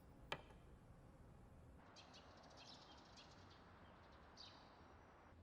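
Faint chirping of small birds, a scatter of short high chirps over a couple of seconds, with a single soft click just before.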